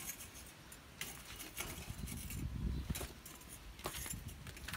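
Scattered light metallic clinks and taps from a wire grill rack being handled over a cooking fire, over a low background rumble.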